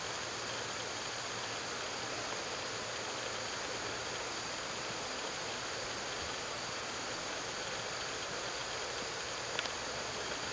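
Steady rushing outdoor noise with no elk call or other distinct animal sound, and one faint click near the end.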